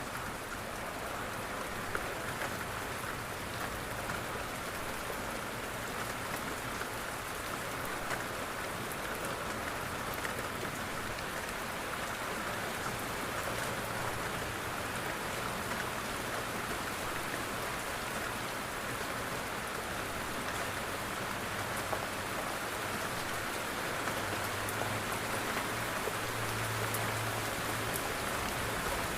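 Steady rain pattering on a window, a dense, even spatter of drops; a low rumble grows in the last few seconds.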